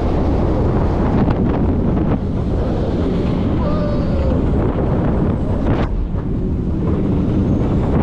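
Heavy wind buffeting the microphone over the steady rumble of a Mack Rides Stryker roller coaster train running at speed along its steel track.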